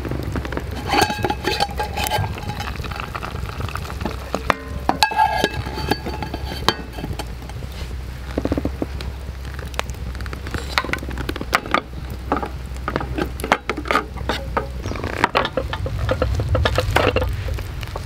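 Wood campfire crackling with irregular sharp pops beneath a lidded camp pot, which sizzles and sputters as it cooks over the flames.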